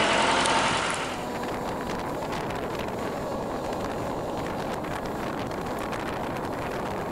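A sailboat's engine hums steadily for about the first second. After that comes a steady rush of wind on the microphone as the boat moves under way, with light buffeting.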